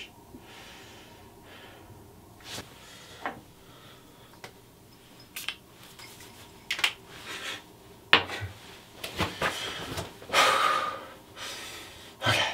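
Scattered short hisses and small clicks as a glass cologne bottle is handled and sprayed onto the wrist, with breaths in between. The longest hiss comes about ten seconds in.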